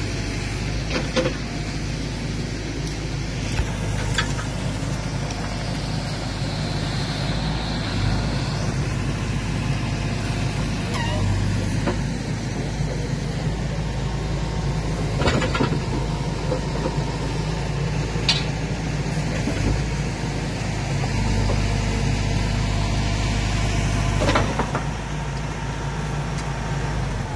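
Large diesel engine of heavy machinery running steadily at idle, with a few sharp knocks and clanks.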